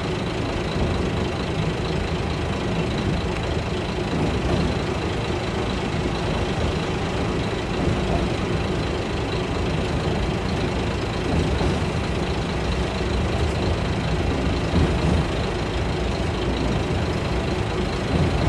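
Kashima Rinkai Railway 6000-series diesel railcar running, heard from inside the passenger cabin: a steady engine and running noise with a low rumble.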